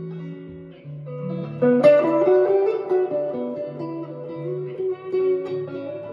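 Danocaster Telecaster-style electric guitar with a Ron Ellis JL pickup set, played on the neck pickup: a slow melodic line of single notes over held bass notes, with a louder chord struck about two seconds in.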